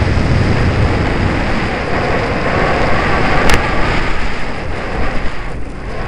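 Loud rushing and buffeting of airflow over the onboard camera's microphone of a radio-controlled model plane in flight, with a single sharp click about three and a half seconds in.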